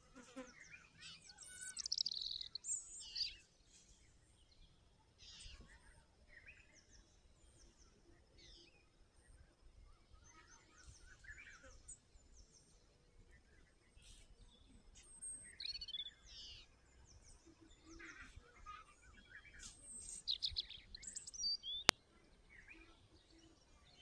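Several small birds chirping and calling in short, scattered high-pitched phrases, busiest about two seconds in and again in the last third, with a single sharp click near the end.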